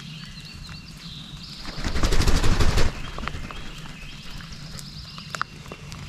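Songbirds singing and chirping in the woods, with scattered small clicks. A loud rustling, fluttering burst lasts about a second, starting about two seconds in.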